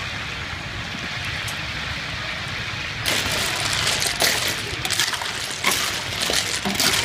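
A pot of snails in their shells boiling, a steady bubbling hiss. About three seconds in it turns louder, with clicking and clattering as the shells are stirred in the pot.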